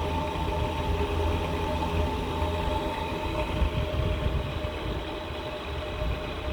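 Small battery-powered fan running: a steady motor whine with an uneven low hum underneath.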